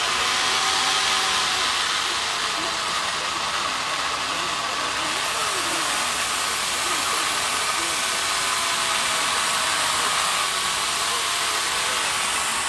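Handheld corded electric power tool running steadily as it cuts into a block of ice: a steady motor whine over a hiss. Crowd voices murmur underneath.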